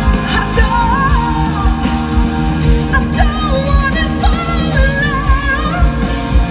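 Live rock band playing: electric guitar over a steady drum beat, with a female lead vocal in long, wavering lines that glide up and down.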